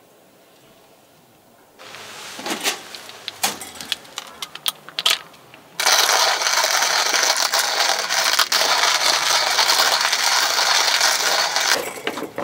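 Manual coffee grinder being handled with scattered rattles and clicks, then grinding coffee beans: a steady, loud crunching for about six seconds that stops shortly before the end, followed by a few knocks.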